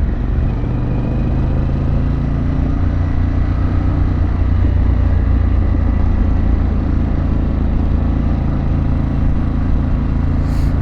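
Harley-Davidson Pan America's Revolution Max 1250 V-twin engine running steadily on the move, through an aftermarket exhaust, swelling slightly about halfway through.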